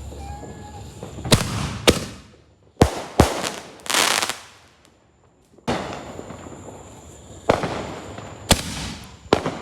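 Fireworks going off: about eight sharp bangs at irregular intervals, each fading out in an echoing tail, with a longer hissing burst about four seconds in.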